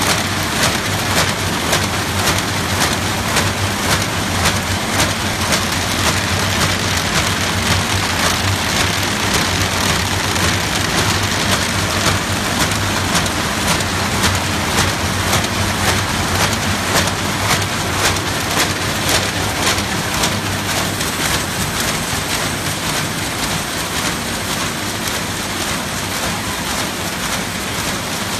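RZFD-450 roll-fed kraft paper bag machine running: a loud, steady, dense clatter of rapid clicks over a low hum.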